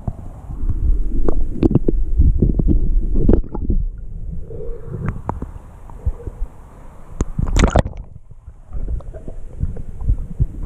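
Muffled water sound picked up by a camera held underwater in a river: low rumbling and gurgling with many small knocks. There is a brief splash about seven and a half seconds in as the camera passes through the surface.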